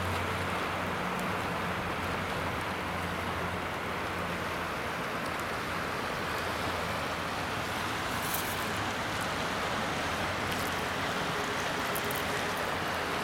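Steady rush of small waves lapping at a shell-and-gravel shoreline, with some wind. A faint low hum fades out after about four seconds, and a few light crunching clicks come near the end as crushed shells are sifted through a hand.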